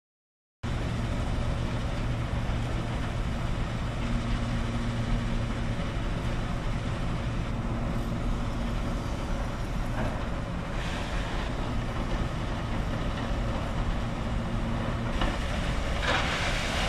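Heavy construction machinery running steadily: a low engine drone with a constant hum, cutting in abruptly about half a second in.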